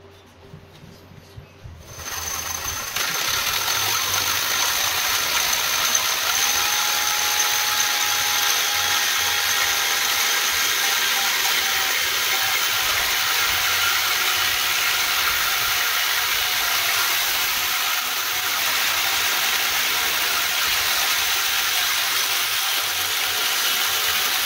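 Electric drill driving a hole saw through steel tube in a tube notcher. The drill starts about two seconds in and then runs steadily with a constant grinding cut.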